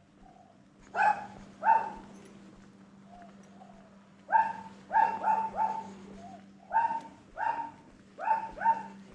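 A dog barking repeatedly, about ten short barks coming in groups of two to four, over a faint steady low hum.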